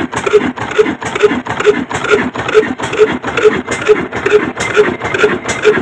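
Old black stationary diesel engine running steadily, with an even, slow exhaust beat of about two thumps a second and mechanical clatter between the beats.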